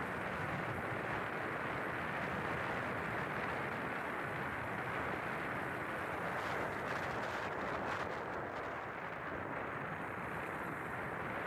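Steady rush of wind buffeting the microphone, mixed with road noise, while travelling along a road in a moving vehicle.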